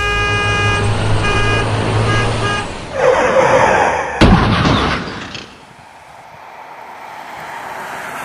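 A held, pitched tone that breaks off a few times gives way to a surge of noise. About four seconds in comes a single sharp thunderclap with a rumble after it, then the steady hiss of heavy rain.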